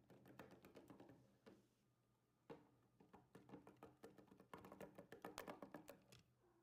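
Faint, irregular clicking and tapping as a small clay scale-model van with pen-spring suspension is rolled over rough ground, clustering into quick runs of clicks about a second in and again after the fourth second.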